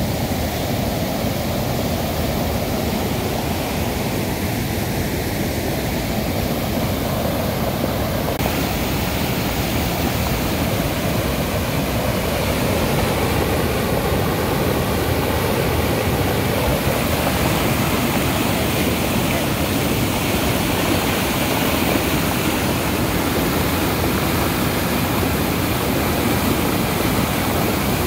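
Muddy river water pouring over the crest of a small check-dam weir and churning into white foam below: a steady, loud rush of falling water. The rush turns hissier about eight seconds in.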